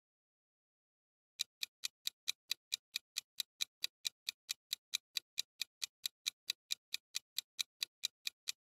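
Countdown timer sound effect: even clock-like ticks, about four a second, starting about a second and a half in.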